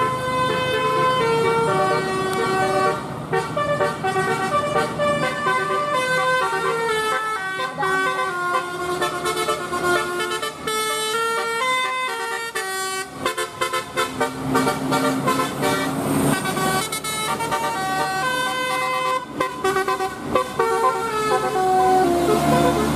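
Bus's Basuri 'telolet' musical horn playing a tune: a run of held horn notes stepping up and down in pitch, one after another.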